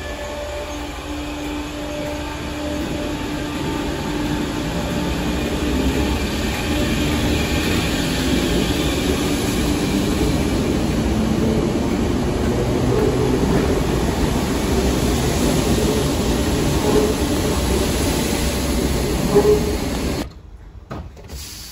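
Merseyrail Class 507 electric train (unit 507018) pulling out of an underground station platform. Its running gear makes a steady rumble with a low hum that grows louder as the train passes close by, then the sound cuts off suddenly near the end.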